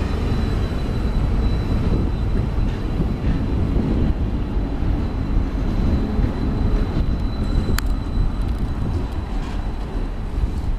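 Stadler Variobahn tram passing close by, a steady rumble from its running gear on the rails with a faint steady high whine over it. A single sharp click about eight seconds in.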